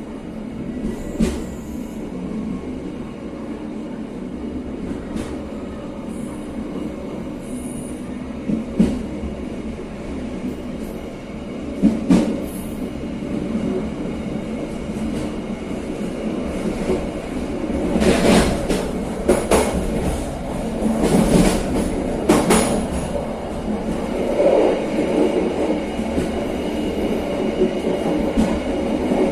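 Moving passenger train's wheels rolling on the rails: a steady rumble with sharp clacks and knocks over rail joints, a cluster of louder ones about two-thirds of the way through.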